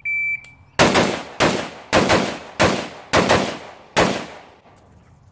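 A shot timer's buzzer gives one high, steady beep of about half a second. AR-15 rifle shots in .223/5.56 follow: nine shots fired in quick pairs with short pauses between, each crack trailing off in echo. The last shot comes about four seconds after the buzzer, for a drill time of 3.92 seconds.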